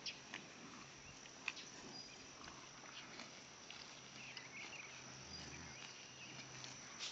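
Quiet open-pasture ambience with a few faint high chirps and a few soft clicks.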